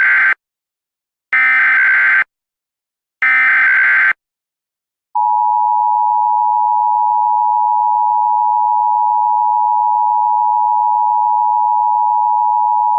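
Emergency Alert System tones announcing a severe thunderstorm warning. The end of one SAME header data burst is followed by two more, each about a second long with short silences between. About five seconds in, the steady two-tone EAS attention signal (853 and 960 Hz) starts and holds.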